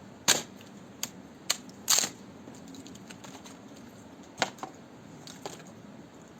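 A handful of sharp, irregularly spaced clicks and knocks, loudest about a third of a second in and around two seconds in, over a low steady background.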